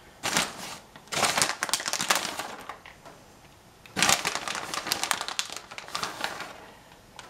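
Crinkling and rustling as shredded cheese is shaken out of its bag into a mixing bowl of riced cauliflower, in three spells of handling.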